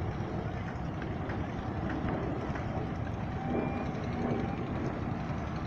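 Steady low rumbling background noise that barely changes in level, with a few faint brief tones near the middle.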